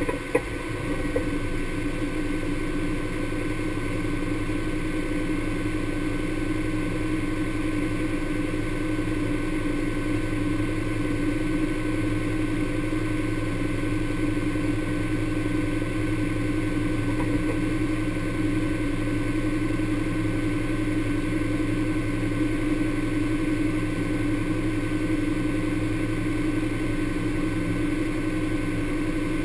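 Honda Pioneer 1000 side-by-side's parallel-twin engine idling steadily, an even, unchanging hum.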